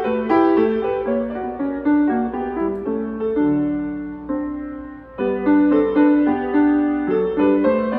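Grand piano played solo: quick notes slow into long held chords about three and a half seconds in and fade away, then a new phrase starts loudly just after five seconds.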